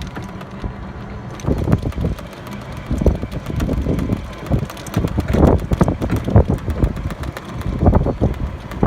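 Wind buffeting the microphone in irregular low gusts, with a few faint clicks.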